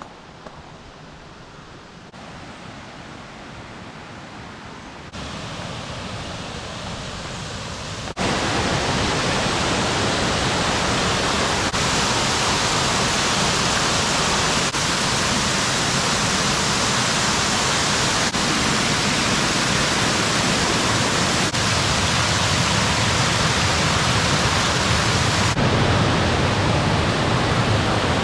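Waterfall rushing, a steady noise of falling water. It gets louder in a few sudden steps over the first eight seconds, then holds steady and loud.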